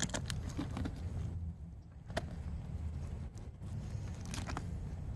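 A duck carcass being worked by hand: faint crackles and a few sharp clicks as skin is peeled back and breast fillets are cut free, over a low steady rumble.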